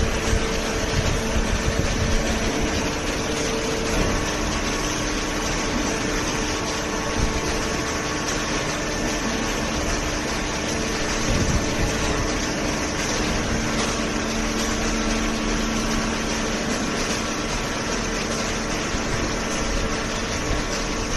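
Hydraulic paper baler running steadily: its motor and pump make a constant hum with a few steady tones over even machine noise.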